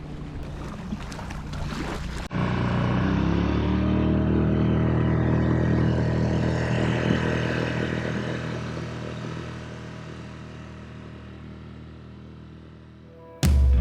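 An engine starts up and picks up speed, then runs steadily and slowly fades away. About two seconds in, it cuts in suddenly after a stretch of crackly, wind-like noise.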